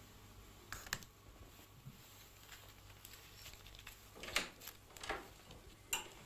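Coins and a magnifying glass handled on a desk: a few scattered light clicks and taps.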